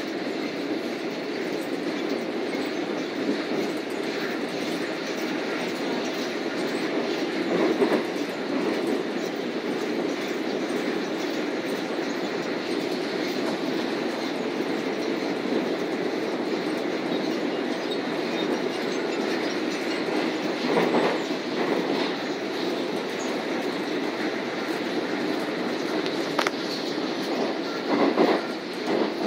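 Seoul Subway Line 4 train running, heard from inside the carriage: a steady rumble of wheels on rails. A few louder clatters stand out, about a quarter of the way in and near the end.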